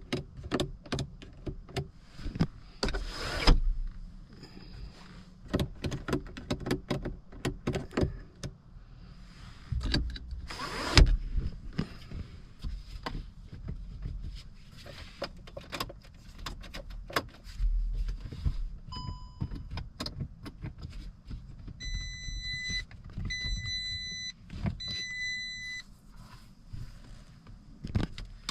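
Scattered clicks and knocks of handling around a car, with two short louder rushes of noise. Near the end come one electronic tone and then three evenly spaced electronic beeps. No engine is heard running.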